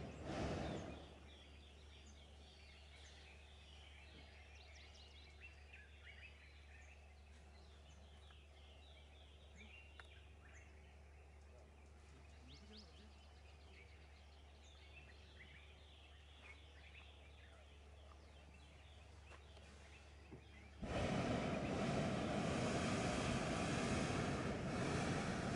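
A hot-air balloon's propane burner firing cuts off about a second in, leaving birds chirping in the trees. About 21 seconds in the burner fires again with a loud steady blast for about four seconds, the loudest sound here.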